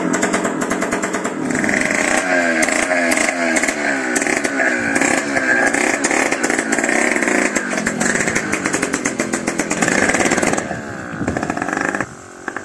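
Small engine of a homemade minibike running and being revved up and down again and again. Near the end it drops to a quieter, steadier run.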